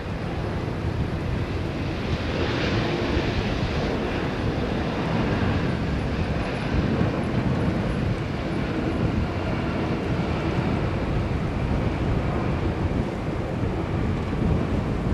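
Jet engine noise of a Boeing 777-200 airliner on its landing roll, a steady loud rush that swells about two seconds in and stays loud. Wind rumble is on the microphone.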